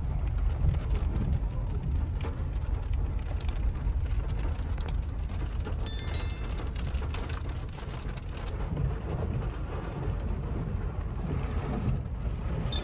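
Rain on a pickup truck's roof and windshield heard from inside the cab while driving, over a steady low road and engine rumble. A few light clicks and a short electronic chime sound near the middle.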